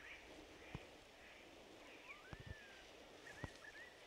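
Near silence with faint bird calls: a whistle that rises and falls about two seconds in, and a run of short chirps later. A few soft ticks are scattered through.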